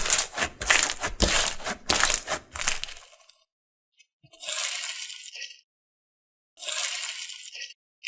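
Slime being squeezed and pressed by hand, crackling in a quick run of crisp strokes for about three seconds. Two smoother passes of about a second each follow.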